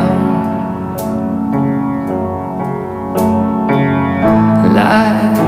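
Background music: a song playing held chords that change every second or two.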